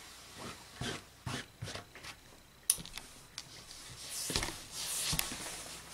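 Hands smoothing rayon fabric on a table make about five soft rustling swishes, and there is a sharp click a little before halfway. Near the end a gravity-feed steam iron is pressed and slid over the fabric with a hiss of steam.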